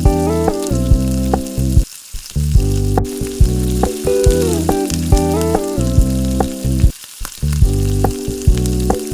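Instrumental background music with a steady beat, dropping out briefly twice, over the sizzle of food frying in a pan.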